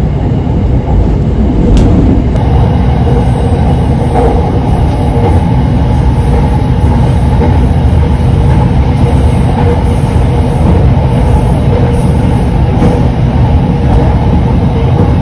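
Cabin noise inside an SRT Red Line electric commuter train while it runs: a loud, steady low rumble of wheels and running gear with a faint steady hum.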